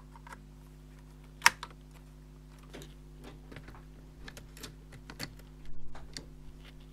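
Scattered plastic clicks and taps from handling a ThinkPad laptop's case and parts by hand, with one sharp click about a second and a half in and a short, duller rattle of handling near the end.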